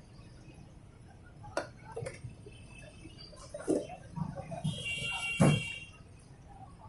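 Utensils clicking and clinking against clay pots and a steel tray: a few sharp clicks, then a short ringing clink about five seconds in, the loudest sound.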